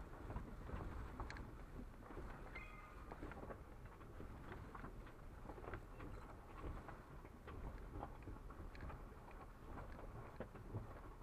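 Vehicle creeping slowly along a rocky gravel trail: a steady low rumble with scattered crunches and clicks of the tyres rolling over loose stones.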